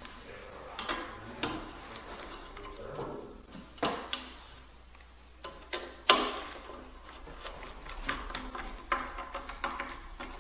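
A hand screwdriver turning screws into a metal mounting plate: scattered sharp clicks and small metallic ticks, a few louder ones around one, four and six seconds in, and a run of quicker small ticks later on.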